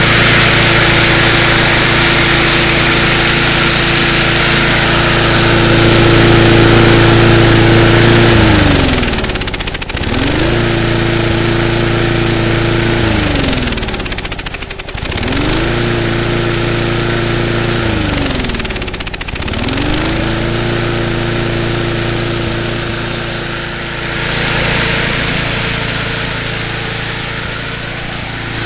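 Propane-converted push mower's small single-cylinder engine running steadily at a fast speed. Three times its speed sags, the pitch falling over about a second, before it picks right back up.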